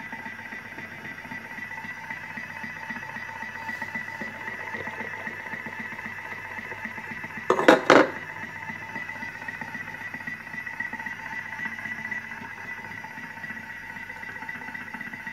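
Thermomix food processor running steadily while it cooks, its motor giving a steady whine with a low hum. About halfway through come two sharp knocks as the phone recording it is handled.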